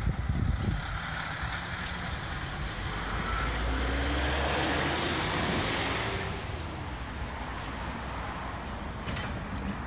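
Electric freight tram car running along the track: a steady rumble from its wheels and running gear. It swells a few seconds in with a faint rising whine from the traction motors, then eases off.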